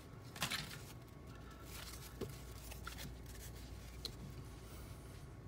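Faint handling of baseball cards: stiff card stock sliding and rustling as the cards are flipped through by hand, with a brief louder swish about half a second in and a few soft ticks after.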